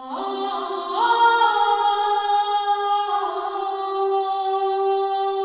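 Intro music: a sustained chord of held tones that slides up to a higher chord about a second in, holds, and shifts again near three seconds.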